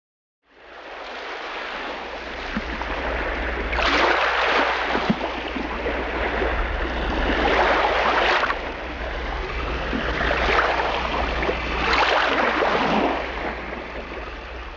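Rough sea: waves rushing and breaking in about four big surges over a steady low rumble.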